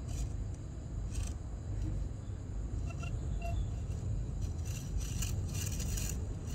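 Cats scuffling on a smooth floor: light scrapes and scuffs over a steady low rumble, busiest in the last couple of seconds, with two short faint squeaks about three seconds in.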